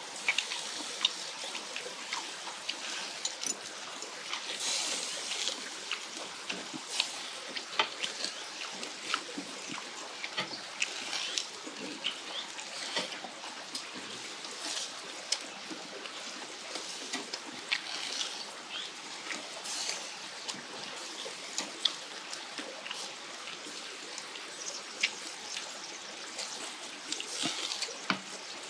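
Pork sizzling on a barbecue grill grate: a steady hiss with many small pops and crackles, mixed with the chewing sounds of people eating.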